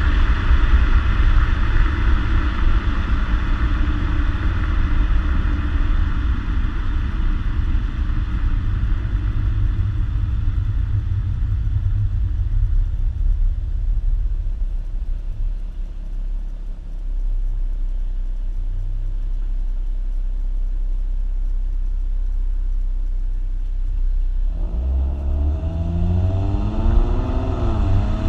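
2014 Ford Mustang's 3.7-litre V6 through its stock exhaust: a steady drone while driving, easing down to a low, even rumble, then accelerating near the end with the engine note rising, dipping briefly and climbing again.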